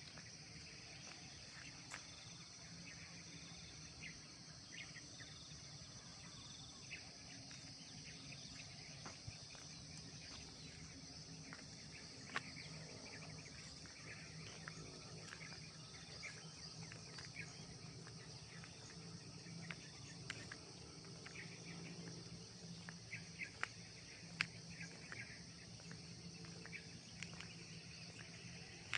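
Faint, steady high-pitched insect chorus drones throughout, with scattered short ticks and chirps over it and a few sharper clicks.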